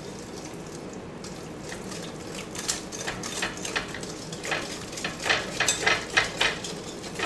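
Wire whisk beating wet banana bread batter in a glass bowl: the wires click and scrape against the glass in quick repeated strokes, about two or three a second, starting about a second and a half in.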